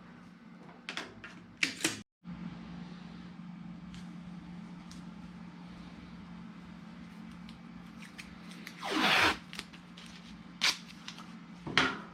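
Small handling clicks and knocks over a steady low hum, with a short rasping pull about nine seconds in as masking tape is drawn off its roll.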